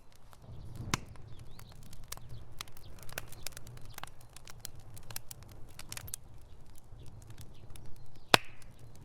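Wood fire crackling: irregular sharp pops and snaps over a low steady rumble of flames, with a loud single pop near the end.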